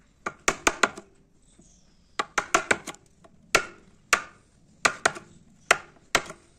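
A wood chisel chopping into pine to cut a hinge mortise: sharp knocks come first in quick runs of three or four, then as single strokes about every half second to a second.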